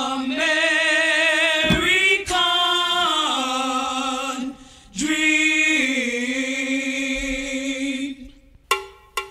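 Music: loud sung notes with vibrato, in two long held phrases with a short break between them, without audible accompaniment. Near the end, a run of short, sharply struck repeated notes begins.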